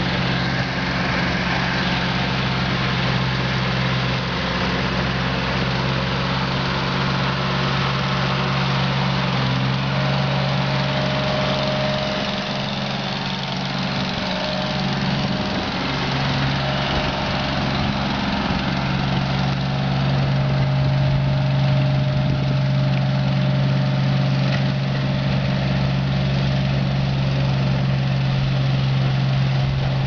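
Snowplow dump truck's engine running steadily with a low hum as it plows snow off the street, over a steady hiss, getting slightly louder about two-thirds of the way through.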